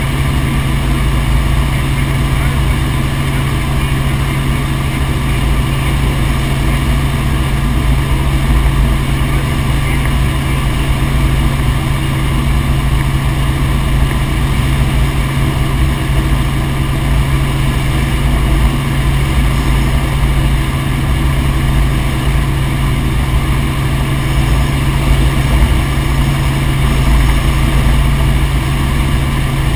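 Helicopter in flight: a steady, loud drone of engine and rotor that holds unchanged throughout.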